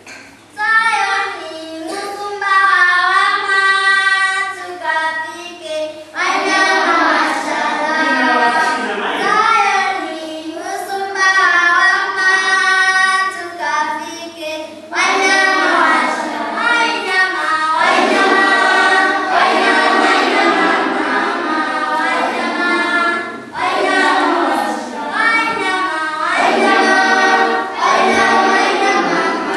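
A group of school children singing together as a choir. The singing begins thinner and fills out into the full group about six seconds in.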